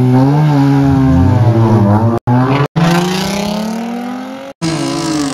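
Two cars, a rotary-engined Mazda RX-8 and a 3-litre Toyota Mark X, revving hard at a drag-race start and then accelerating away at full throttle. The engine note swings up and down, then climbs steadily, and the sound drops out for an instant three times.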